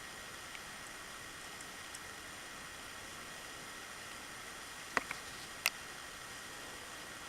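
A steady hiss with a faint high whine, broken by three sharp clicks about five seconds in.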